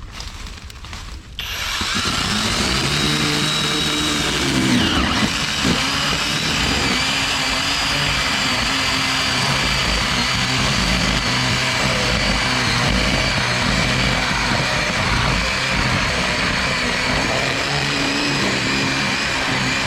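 Cordless electric chainsaw starting about a second and a half in, then running steadily as it cuts into a tree, its whine shifting in pitch as the chain takes the load.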